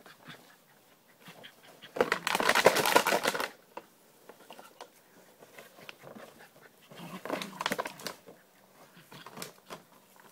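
Plastic bottle crackling and crunching as a small dog bites and shakes it: two loud bursts of rapid clicking, about two seconds in and again about seven seconds in, with fainter crinkles between.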